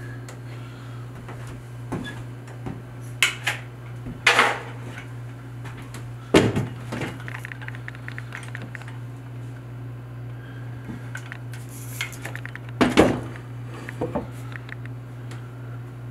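Ceramic toilet tank lid being lifted off and set down, giving a few separate hard clunks and scrapes of porcelain, two of them close together about 13 seconds in. A steady low hum runs underneath.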